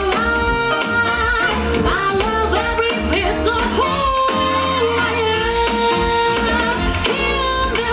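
Upbeat song with a singing voice over a steady, pulsing bass beat, played for a dance curtain call.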